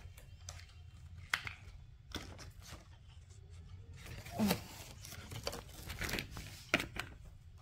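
Plastic packaging of a stationery gift set crinkling and rustling as it is handled and opened, with a few sharper crackles.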